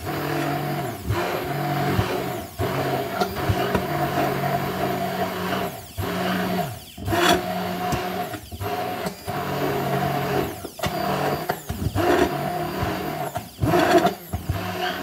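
NutriBullet immersion blender running in a tall plastic beaker, its motor blade chopping through a mostly frozen mixture. It is a steady, loud motor hum with several brief dips as the blender is worked up and down.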